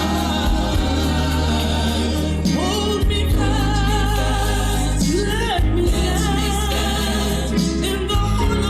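Gospel music: a choir or group of singers with a sustained bass accompaniment, voices sliding between held notes.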